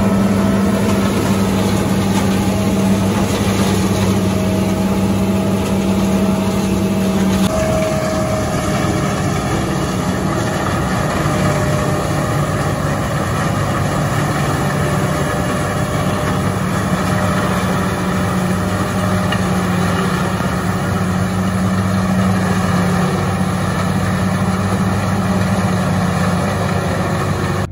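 Self-propelled forage harvester running steadily under load as it cuts and chops standing maize, with the engine of the tractor hauling the trailer alongside. The drone's pitch shifts slightly about seven seconds in.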